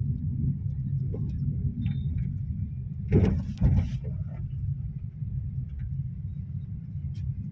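Inside a moving car: the steady low rumble of engine and tyres, with two short, loud knocks about three seconds in.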